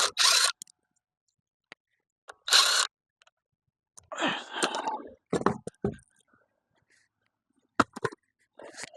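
Short, separate bursts of clanking and scraping, with a few deeper knocks and sharp clicks, from work on a boat trailer's wheel and tire, cut apart by dead silent gaps.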